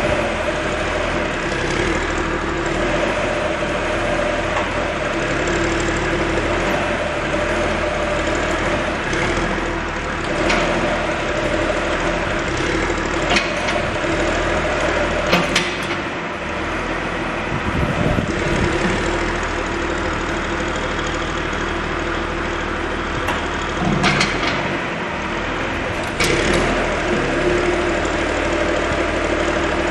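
John Deere 710D backhoe's diesel engine idling steadily, with a few short clicks and knocks and a brief deeper rumble about two thirds of the way in.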